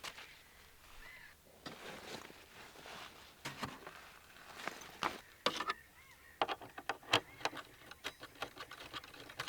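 Scattered small clicks and rustles, sparse at first and coming thick and fast in the second half.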